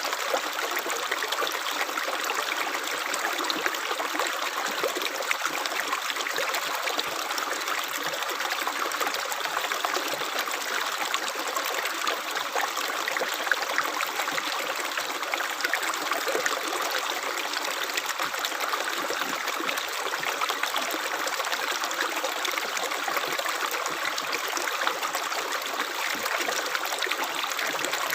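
Small stream of running water, a steady trickling babble full of tiny splashes, with little deep rumble.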